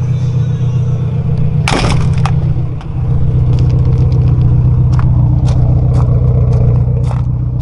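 A car engine idling loudly and steadily without revving, with a brief loud rush about two seconds in and light crunching footsteps on gravel.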